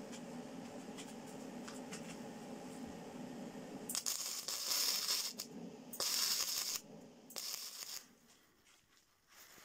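Angle grinder disc biting into steel in three loud hissing bursts, about four, six and seven and a half seconds in, after a lower steady hum.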